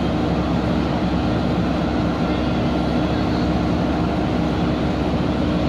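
Fire trucks' diesel engines running steadily, a constant loud drone with a steady hum in it.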